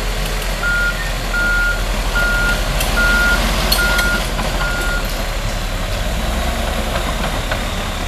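Diesel engines of a bulldozer and a dump truck running with a steady low rumble, while a backup alarm beeps six times at an even pace and then stops, the sign of one of the machines reversing.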